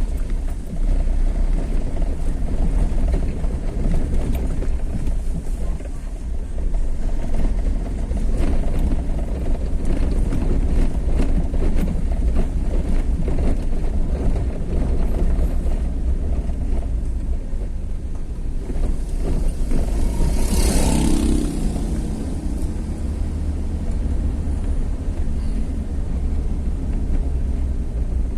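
Steady low rumble of a vehicle travelling along a road. About twenty seconds in, another vehicle passes close by, swelling and fading over a couple of seconds.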